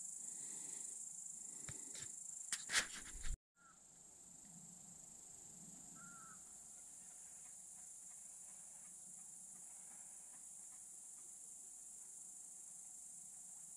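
Crickets chirring in a steady, high, even drone. A few sharp knocks come between two and three seconds in, then the sound cuts out for a moment, and a short chirp follows about six seconds in.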